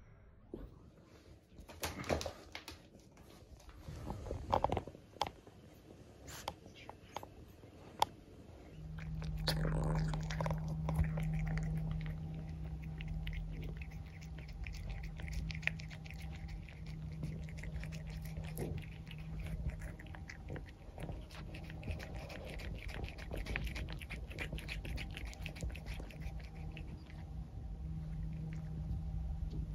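Cat chewing a whole raw chick, with a dense run of small wet bites and crunches over a steady low hum. Before that, about nine seconds of scattered sharp taps and knocks come from the cat batting at a toy.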